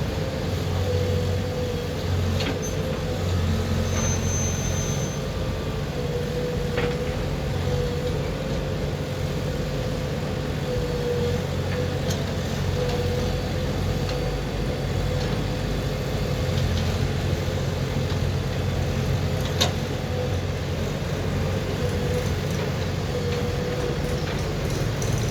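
Diesel engine of a JCB 3DX backhoe loader running steadily at work. A steady whine sits over the low hum, and a few short clicks come and go.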